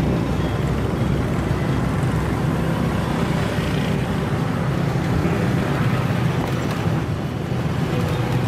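Steady city street traffic noise, with vehicle engines running in a continuous low hum.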